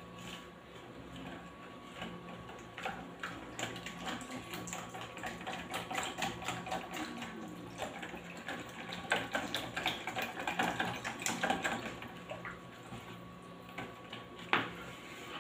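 A metal spoon stirring and clinking in a plastic bowl of wet mixture, a quick run of small taps and sloshes that is busiest through the middle, with one sharper tap near the end. A faint steady hum runs underneath.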